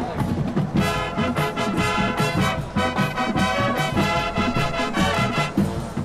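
Upbeat music with brass instruments over a steady beat.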